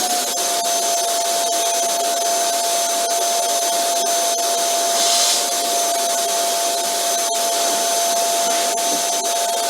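Vacuum cleaner running steadily: a constant motor whine over rushing air, with a brief swell in the airflow hiss about five seconds in.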